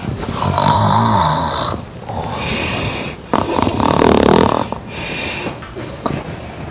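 A woman snoring loudly: two long snores about three seconds apart, with a quieter breath in between.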